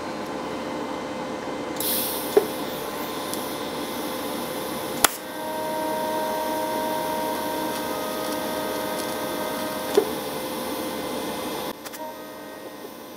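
TIG welding on a steel drive shaft with a Weldpro welder: a steady electrical hum throughout, a hissing crackle as the arc strikes about two seconds in, a few sharp clicks, and a steady buzzing tone through the middle. The level drops near the end as the arc stops.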